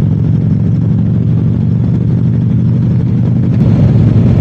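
Harley-Davidson V-twin motorcycle engine running steadily while riding, with wind and road noise, getting a little louder about three and a half seconds in.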